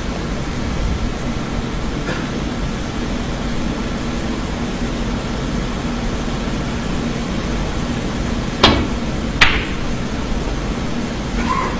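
Snooker shot: two sharp clicks less than a second apart, the cue tip striking the cue ball and then the cue ball striking an object ball, over the steady hum of a hushed arena.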